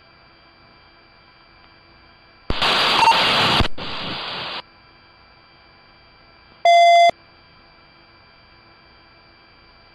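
Police two-way radio channel: a loud burst of static about two and a half seconds in, trailing into quieter hiss for another second, then a single short beep about seven seconds in, over a faint steady hum.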